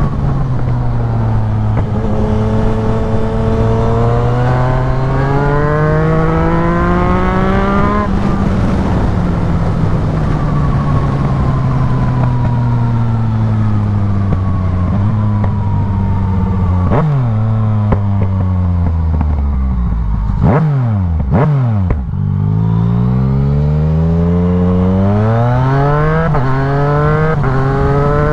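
Yamaha MT-09's three-cylinder engine through a full aftermarket exhaust, heard from the rider's seat: it pulls and changes up, eases off, then drops through the gears with quick throttle blips past the middle, the revs falling low. It then accelerates again, climbing through several upshifts near the end.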